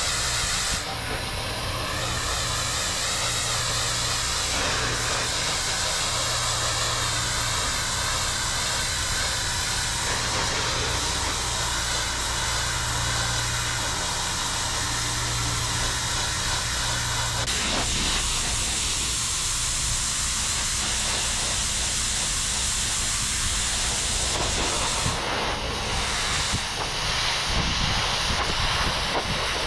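Pressure washer spraying, a steady hiss of the water jet against a hard surface with the machine's engine humming underneath.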